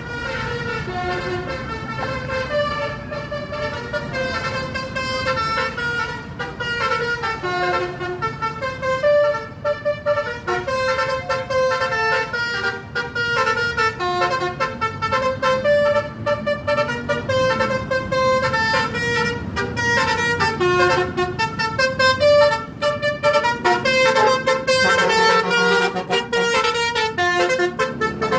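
Bus's basuri (telolet) multi-tone horn playing a melody of quick, stepping horn notes, with the bus's engine running underneath.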